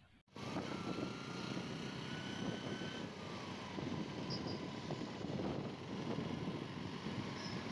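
Steady road and wind noise from riding along in city traffic, with a faint whine in the first few seconds. It starts abruptly just after a moment of silence.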